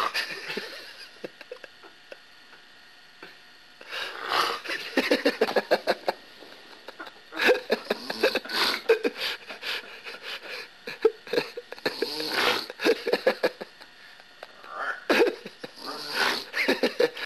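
A man snoring heavily after a night of drinking: loud, rattling snores about two seconds long, one every three to four seconds.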